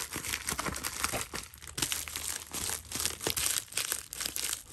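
Shipping package crinkling and rustling as it is handled and turned over, in a quick run of irregular crackles.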